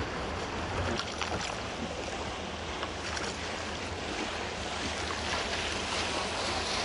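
Canal water sloshing and splashing against a gondola under way as the gondolier's wooden oar strokes through it, with a steady low rumble underneath.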